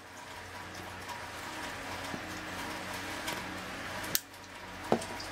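Butane lighter hissing steadily as it is held to a briar pipe's bowl to relight it, cutting off with a sharp click about four seconds in; a second click follows shortly after.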